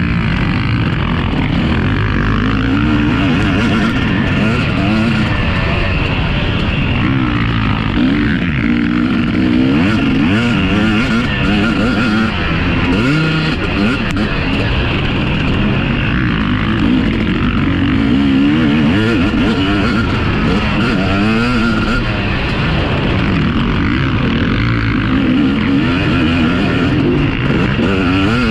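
Several motocross bikes running on the track, their engines overlapping and revving up and down over and over as the riders work the throttle.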